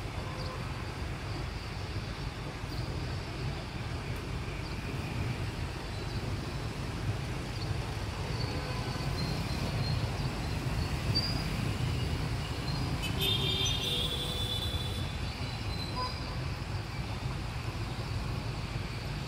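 Steady low rumble of city road traffic beside the river, with a brief high-pitched tone about 13 seconds in.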